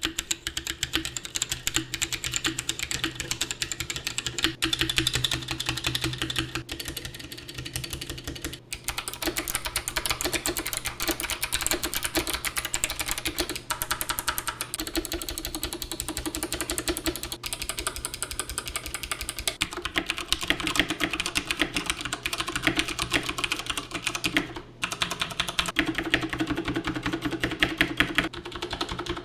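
Continuous fast typing on an aluminum-cased GK64 60% mechanical keyboard with Gateron Brown switches, a metal plate and thick PBT DSA keycaps: a dense run of keystroke clacks. There are brief pauses about nine seconds in and again near twenty-five seconds.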